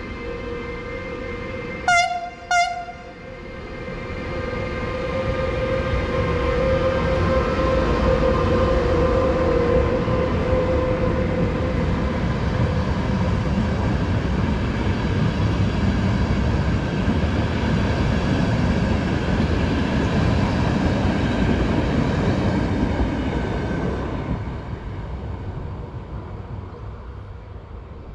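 Siemens HellasSprinter electric locomotive giving two short horn blasts, then passing with its regional train: a steady rumble of wheels on rails that builds over a few seconds, holds, and fades near the end.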